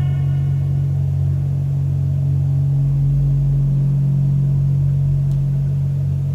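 Steady low drone from the performance's sound-design score, with a deeper rumble joining it about three seconds in.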